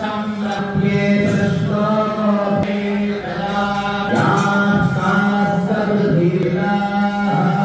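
Devotional mantra chanting over a steady low drone note.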